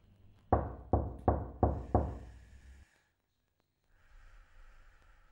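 Five quick, evenly spaced knocks on a door, each ringing briefly.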